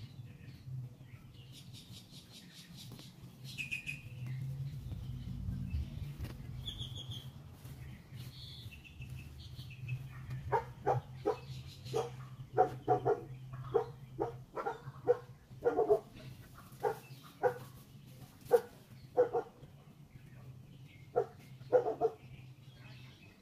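A dog barking, a string of about fifteen short barks in the second half, irregularly spaced. Before the barking starts there are a few bird chirps.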